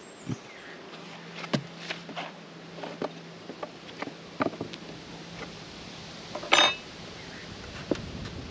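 Metal hive tool clicking, knocking and scraping against the wood of a beehive while prying at an inner cover that is stuck down, with a louder scraping crack about six and a half seconds in. A honeybee buzzes close by with a steady low hum for several seconds.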